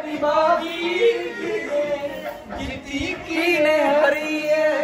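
A voice singing a Punjabi song with long, wavering held notes.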